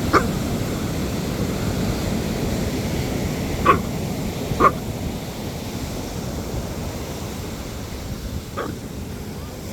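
A dog barking, four short single barks a few seconds apart, over the steady wash of surf.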